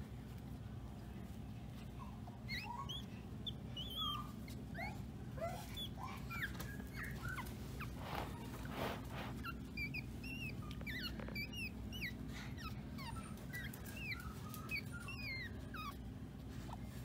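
Maltese puppy whimpering in many short, high squeaks over a steady low hum, with a brief rustle about eight seconds in.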